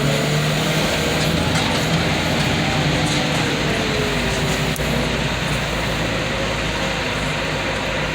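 Engine of heavy scrapyard machinery running steadily under load, with a faint whine that slowly falls in pitch partway through.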